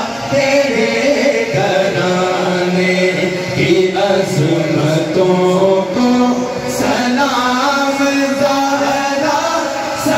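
Male voices chanting a naat, an Urdu devotional song in praise of the Prophet, in long melodic sung lines.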